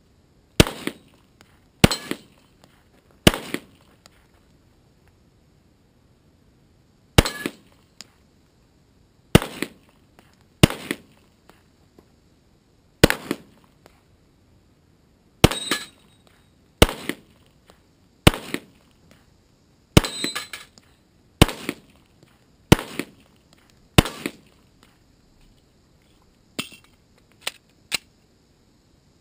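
Handgun shots fired at steel plate targets: about fourteen sharp reports one to three seconds apart, with a pause of about three seconds after the first three. A few fainter knocks follow near the end.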